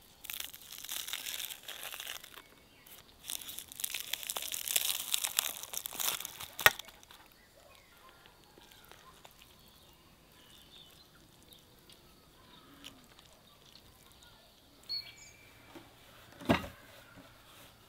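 Crisp baked lavash crust of a shah pilaf crackling and crunching as it is broken open for several seconds, ending in one sharp knock. After that it is quieter, with faint birdsong and a couple of knocks near the end.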